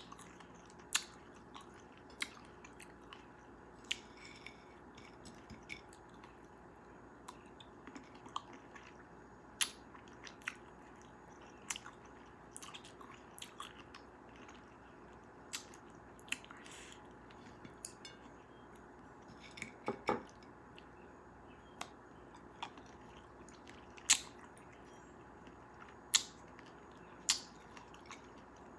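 Close-miked chewing and biting of cherries: wet mouth sounds with short sharp clicks and pops, irregularly about once a second, over a steady faint hiss.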